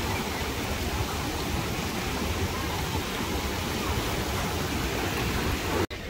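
Ocean surf breaking and washing up the beach in a steady rush, cut off suddenly near the end.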